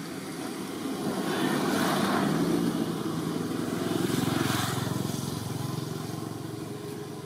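A motor engine passing by, growing louder from about a second in, loudest in the middle, then fading toward the end.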